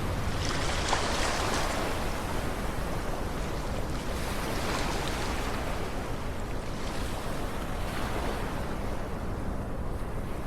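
Sea water washing and surging in slow swells about every four seconds, with wind.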